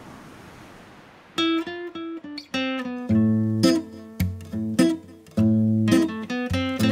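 A wash of ocean surf fading away, then plucked guitar music begins suddenly about a second and a half in, with ringing notes and chords.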